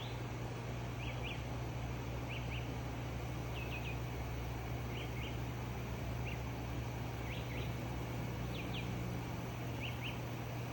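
A bird chirping in short rising notes, mostly in pairs, about once a second, over a steady low hum and hiss.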